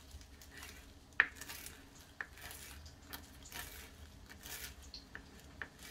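A small kitchen knife slicing fresh parsley on a plastic cutting board: soft, irregular cuts with a few sharper taps of the blade on the board, the sharpest about a second in.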